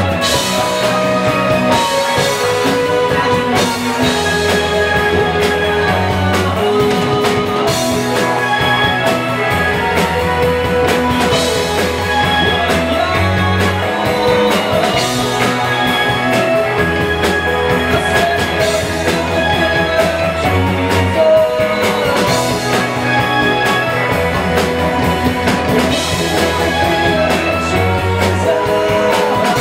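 A rock band playing guitar, bass and drums, with held bass notes that change about every two seconds.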